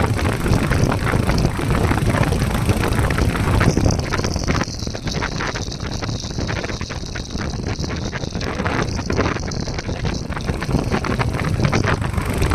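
Royal Enfield Hunter 350's single-cylinder engine thumping as the motorcycle is ridden, with wind rushing on the microphone. About four seconds in, the wind hiss thins and the sound gets a little quieter.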